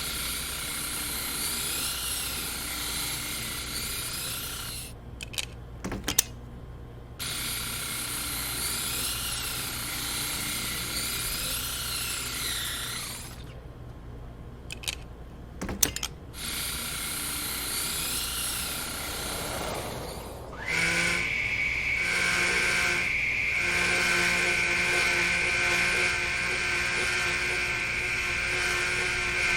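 Power tools at work: a wavering machine sound with two brief pauses and clicks, then from about two-thirds of the way through a motor running steadily with a high whine.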